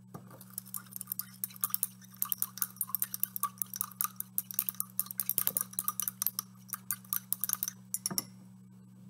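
Glass stirring rod clinking quickly and repeatedly against the inside of a glass beaker, stirring citric acid crystals into water; the clinking stops about a second before the end. A low steady hum lies underneath.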